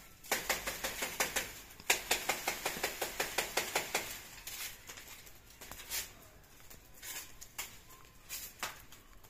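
Straw broom sweeping dry leaves across a concrete courtyard: a fast, even run of brushing strokes, about five or six a second, for the first four seconds, then slower, scattered strokes.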